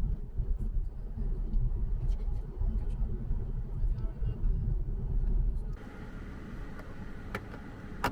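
Car driving, a low uneven road rumble that cuts off abruptly about six seconds in, leaving a quieter background with two sharp clicks near the end.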